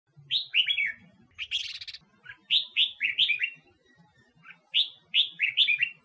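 Red-whiskered bulbul of the Huế type singing: three quick phrases of short, falling whistled notes, with a short harsh burst between the first two phrases.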